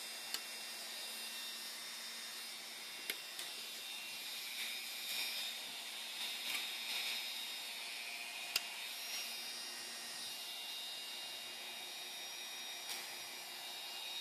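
A steady hiss with a few sharp metallic clicks, spaced several seconds apart, as locking pliers work a steel saw-blade blank clamped in a bench vise.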